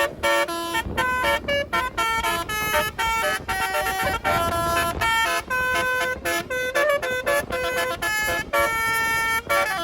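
Telolet basuri musical bus horn, a multi-trumpet electric horn set, playing a fast melody of several horn notes sounding together, stepping from pitch to pitch with short breaks between notes.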